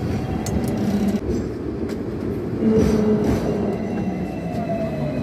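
Hong Kong double-decker tram running along its street tracks: a steady rumble of steel wheels on rail, with faint thin wheel-squeal tones now and then and a few light clicks.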